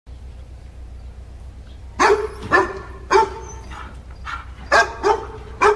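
A dog barking: three short barks about half a second apart starting two seconds in, then two more near the end, over a low steady hum.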